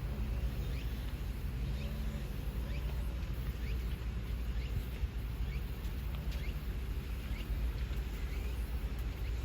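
An engine running steadily at idle with a low, even rumble, with short bird chirps over it every second or so.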